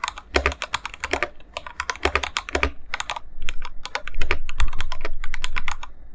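Typing on an Iqunix F97 mechanical keyboard with TTC Gold Pink linear switches and Ducky keycaps: a quick, uneven run of keystrokes. It grows louder and denser for the last two seconds, then stops just before the end.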